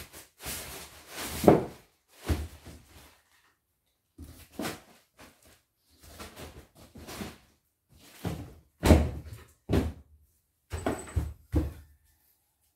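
A string of irregular thumps and knocks, about a dozen, as objects are handled and set down by hand.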